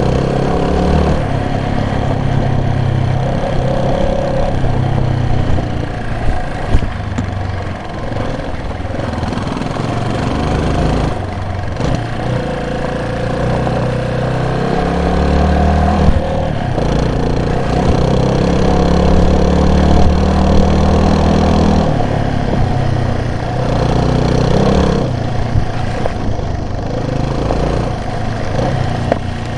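Vehicle engine running while driving, its pitch rising and falling as the throttle changes, with a few brief louder peaks.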